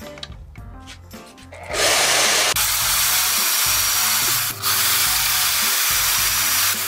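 Power saw cutting through 3/4-inch aluminium hex bar: a loud, even cutting noise that starts about two seconds in, dips briefly midway and stops near the end.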